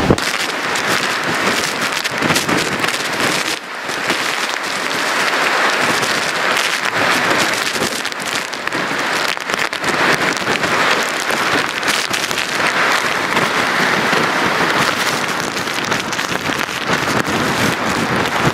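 Hurricane Michael's driving rain and wind: a loud, steady rushing hiss that swells and eases.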